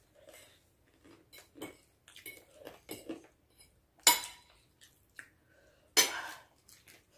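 Forks clinking and scraping on plates while noodles are eaten: small scattered clicks throughout, with two sharp, loud clinks about four and six seconds in.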